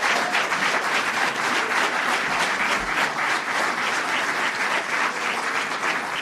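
Audience applauding, many hands clapping in a steady, even patter that eases off near the end.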